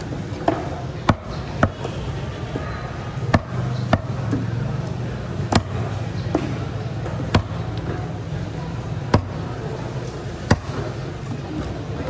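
Large knife cutting through a parrotfish fillet and striking a thick wooden chopping block: sharp knocks, about nine of them, one to two seconds apart, over a steady low hum.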